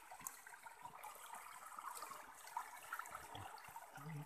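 Faint trickling of a shallow stream, with a few small scattered clicks.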